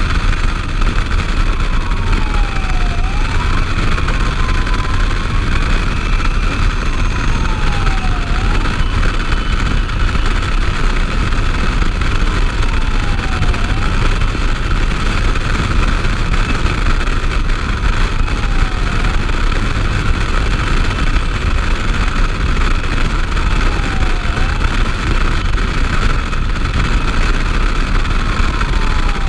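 Fire engine driving, with wind buffeting the outside-mounted microphone and a steady road and engine rumble. A siren wails faintly underneath, sweeping down and back up about every five seconds.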